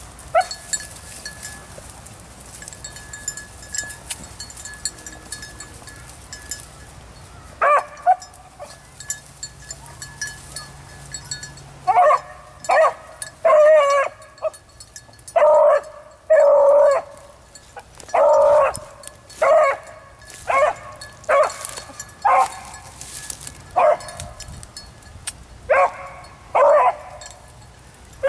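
A single beagle baying while running a rabbit: a string of short, pitched bawls, about one a second, that starts after a quieter first third.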